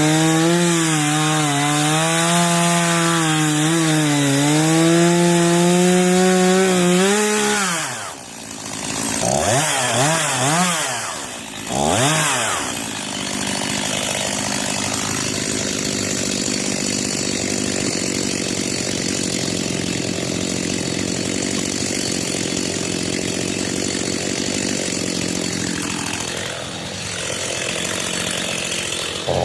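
Gas chainsaw cutting through a log, its engine pitch wavering under load for about the first seven seconds. The pitch then drops, the throttle is blipped up and down a few times, and the saw settles into a steadier, quieter run.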